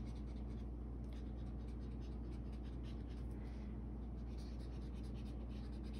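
Felt-tip marker scratching across paper in quick, repeated zigzag strokes, over a steady low hum.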